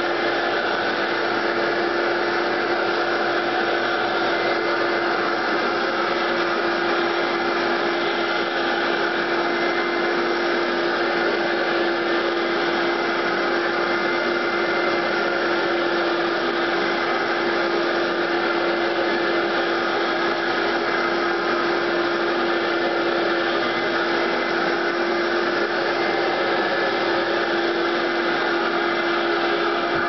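Late-1970s all-metal Eureka model 653 canister vacuum cleaner running steadily while vacuuming carpet: an even rush of air with a steady motor hum.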